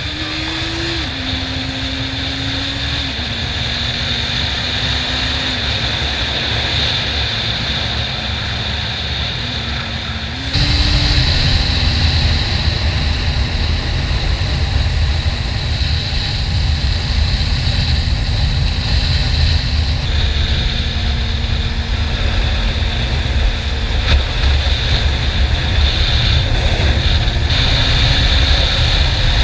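Honda CB400 Super Four's 400cc inline-four engine running on the road, its note mostly holding steady with a few brief rises in pitch, under heavy wind rumble on the helmet-mounted camera. The sound changes abruptly twice, and the wind is louder after about ten seconds in.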